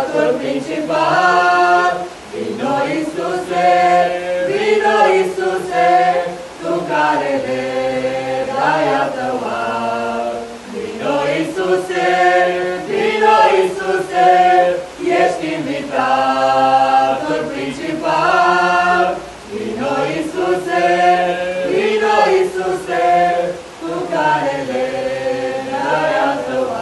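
Mixed group of young men and women singing a Romanian worship song a cappella, with no instruments. The phrases are sung in unison or close harmony and broken by short pauses for breath.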